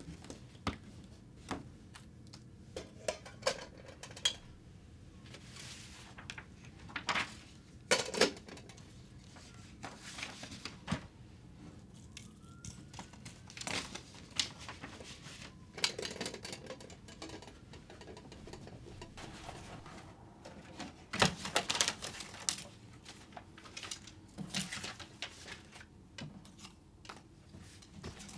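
Hands handling small household items: irregular light clicks, taps and brief rustles, with a couple of louder knocks about eight seconds in and again near twenty-one seconds.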